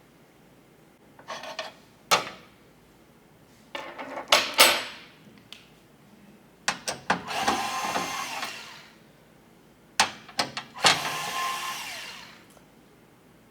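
Small electric screwdriver driving screws in two runs of a second or two each, about seven and eleven seconds in, with a steady whine. Between them come sharp clicks and knocks of computer parts and tools being handled.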